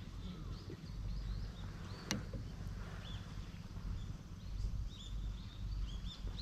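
Small birds chirping in short, high, repeated calls over rain falling and a steady low rumble, with one sharp tap about two seconds in.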